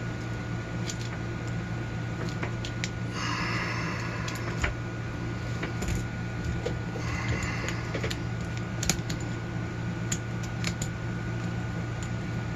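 Small metallic clicks and a couple of short rasps from a screwdriver with an Allen bit slowly backing a long, Loctite-stuck screw out of a padlock body, over a steady low hum.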